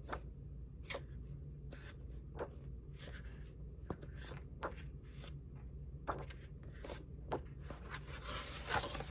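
Sheets of a scrapbook paper pad being flipped one after another, each turn a brief paper rustle, about one a second, with a busier stretch of handling near the end. A steady low hum sits underneath.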